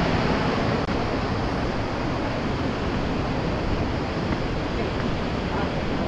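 Steady rushing of the waterfall and river in the gorge, a dense even noise that does not let up.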